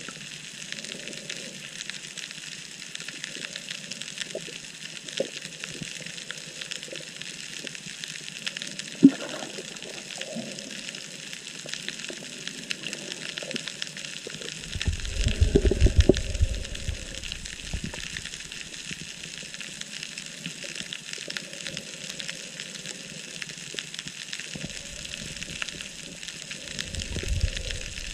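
Underwater ambience picked up through a camera housing: a steady hiss with fine, dense crackling. Low rumbling bumps come about halfway through and again near the end, with one sharp tick before them.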